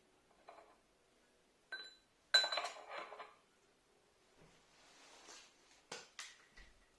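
Small metal parts clinking and knocking against each other and on a hard surface, several separate knocks, some ringing briefly, with a dense rattle of clinks a little over two seconds in.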